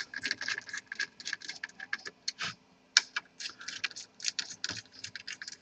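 Small, irregular clicks and taps, a few each second, from laptop parts being handled and fitted together during reassembly.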